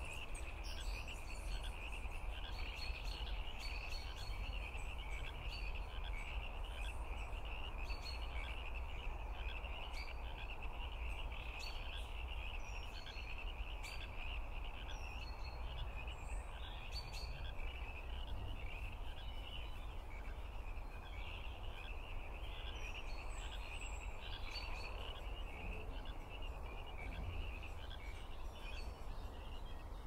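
A chorus of frogs calling steadily and densely, with scattered short bird chirps above it.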